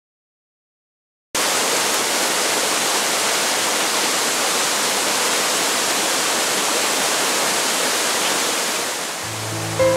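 Falling water rushing steadily, a dense even hiss-and-rush of a waterfall or rapids heard close up, cutting in suddenly about a second in after silence. Music fades in under it near the end.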